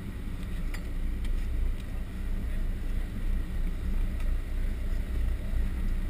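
Steady low rumble of a fishing boat's engine, with wind on the microphone and a few faint clicks in the first couple of seconds.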